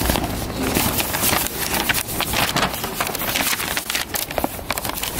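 A folded paper map and brochure being unfolded and handled close to the microphone: a continuous crinkling rustle full of small crackles.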